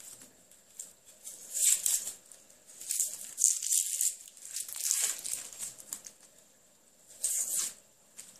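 Dry onion skin crackling and rustling as a knife peels it away from the onion, in short bursts.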